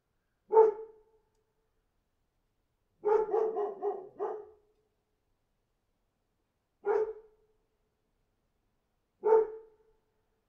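A dog barking: a single bark, then a quick run of about five barks about three seconds in, then two more single barks a couple of seconds apart.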